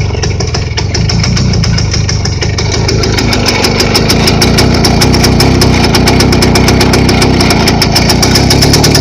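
An engine running steadily close by. Its pulses quicken a little and it grows slightly louder partway through.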